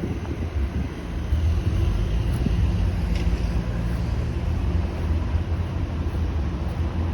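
TTC Toronto Rocket subway train moving in the rail yard: a steady low rumble that grows louder about a second in, with wind on the microphone.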